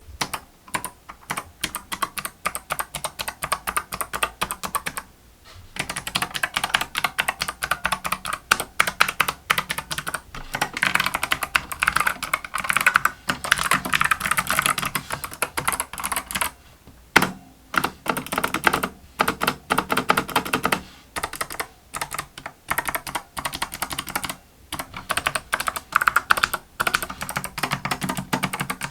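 Fast typing on a full-size mechanical keyboard with Kailh optical clicky switches, in quick runs of crisp keystroke clicks broken by a few short pauses. The reviewer finds the keyboard's case ring (hollow resonance) more pronounced than on a similar Kailh optical click board.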